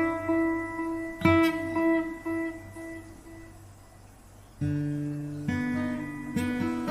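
Acoustic guitar played with strummed chords and picked notes, heard from the guitar itself without an amplifier, through an X2 Double acoustic pickup system with built-in reverb, chorus and delay. Chords struck near the start and about a second in ring out and fade nearly to nothing. A new chord comes in past the middle, followed by more notes.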